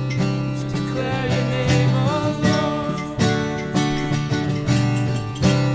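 Two acoustic guitars strumming chords in a steady rhythm, an instrumental passage between sung lines of a worship song.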